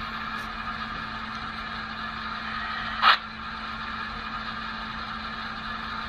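Sound-equipped Sn3 scale K-27 steam locomotive model moving off slowly, its sound decoder playing a steady hiss and hum through the small onboard speaker, with one short louder burst about halfway through.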